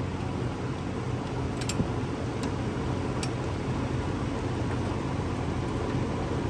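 Steady low background hum, with three faint light clicks in the first half as the carburetor and its linkage are worked off a Briggs & Stratton mower engine.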